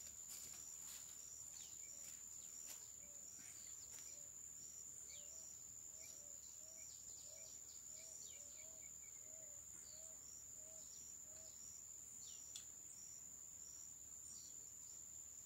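Faint insect trill, steady and high-pitched, with birds chirping over it. From about five seconds in there is also a run of low repeated calls, roughly two a second.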